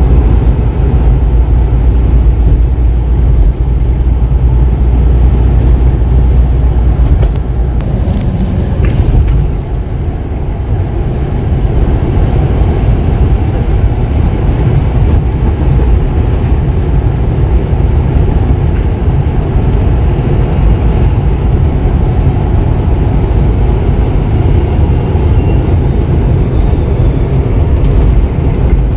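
Steady low rumble of a semi truck's engine and tyres on the highway, heard from inside the cab while driving. The deepest part of the rumble eases a little about nine seconds in.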